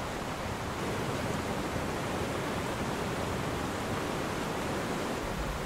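Fast glacial river rushing in whitewater over boulders: a steady, even roar.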